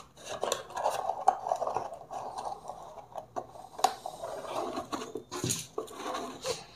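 Hands handling a small cardboard product box on a table: rustling and scraping of the cardboard, with a few light taps and clicks scattered through.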